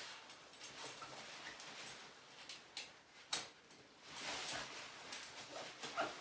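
Fabric shower curtain liner rustling as it is hooked onto metal shower curtain hooks on a rod, with scattered light metal clicks and one sharper click about halfway through.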